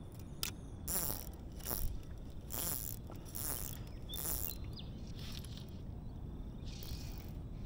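Fly reel's click-and-pawl drag buzzing in a series of short ratcheting bursts as fly line is stripped off the reel by hand.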